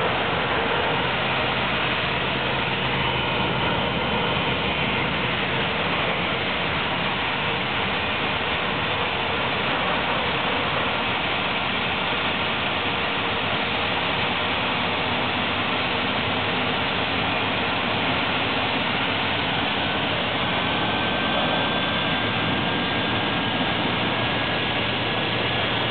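Steady engine noise from an Airbus A321 pushback with a towbarless tractor: a continuous, even roar, with a faint high whine that slowly rises in pitch near the end.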